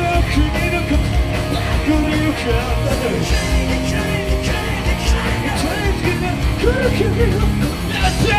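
Live rock band playing at full volume: drum kit, electric guitars and bass, with a singer's voice over them.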